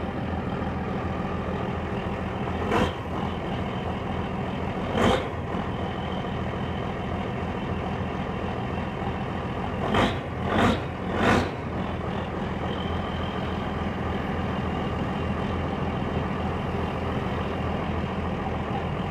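Valmet 8150's six-cylinder 6.6-litre Sisu diesel idling steadily while still cold, just after a cold start. Five brief, sharp noises stand out above the idle, the loudest sounds here: one a few seconds in, another shortly after, then three in quick succession about halfway through.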